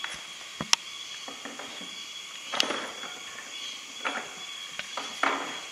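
Wooden beehive boards being handled and set down on a wooden bench: a sharp knock under a second in, then a few duller knocks and scrapes of wood on wood.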